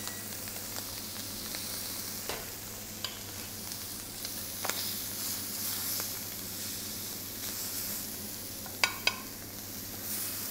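Ptarmigan breasts sizzling steadily in a very hot frying pan, searing to seal them. Metal tongs click against the pan a few times, with two sharp clicks close together near the end.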